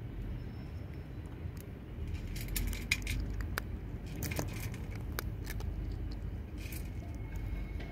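A cat eating dry kibble from a stainless steel dish: irregular crunching and sharp clicks of kibble against the metal, starting about two seconds in, over a low steady background rumble.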